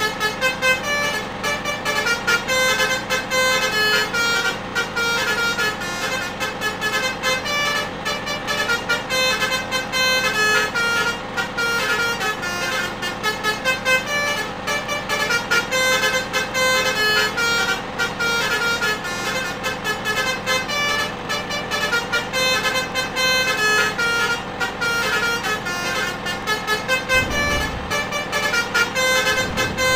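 Basuri musical horns on a bus playing a fast 'telolet' tune, a quick run of short changing horn notes that goes on without a break. A brief low rumble comes in near the end.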